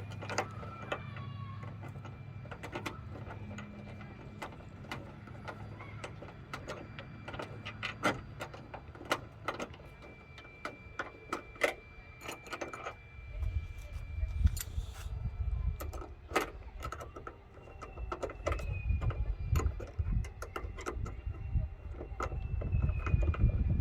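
Irregular small metallic clicks and clinks of an Allen wrench working on hood-latch bolts and lock nuts. A low rumble comes in about halfway through.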